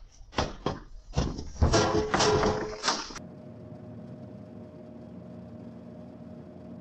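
A rapid run of loud knocks and clatters over about three seconds, which cuts off suddenly and gives way to a steady faint hum.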